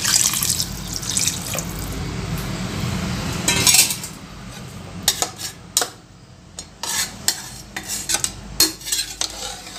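Water pouring from a tumbler into a pressure cooker full of rice and masala for about three and a half seconds, then a perforated metal spoon stirring the watery mix, clinking and scraping against the pot.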